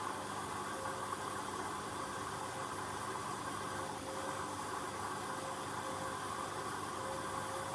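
Hoover H-Wash 300 washing machine running its Auto Clean 60 programme: a steady hiss with a faint hum that fades in and out every second or two.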